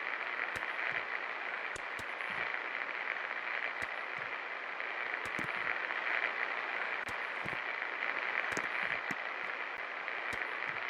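24-inch Kashmir Nabeel ceiling fan running with a steady, even whir, with scattered light clicks at irregular intervals.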